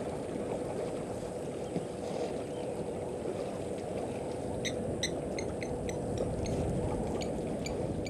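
Steady low rumbling noise throughout, with a run of short, sharp high chirps starting a little past halfway.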